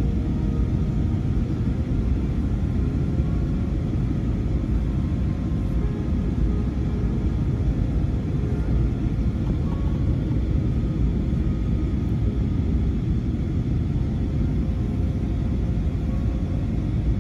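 Steady low rumble of an Airbus airliner heard from inside the economy cabin: engine and airflow noise, even in level, with a few faint steady tones above it.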